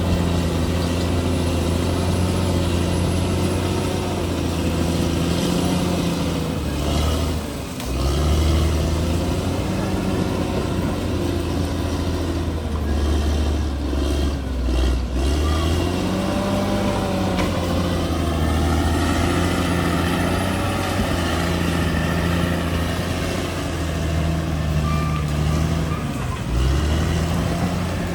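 Crawler bulldozer's diesel engine running under load, its pitch sagging and picking up again several times as the blade is worked.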